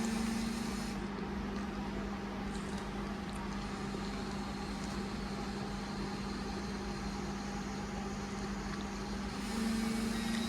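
Class 323 electric multiple unit standing at the platform, a steady hum from its onboard equipment over a faint background rumble.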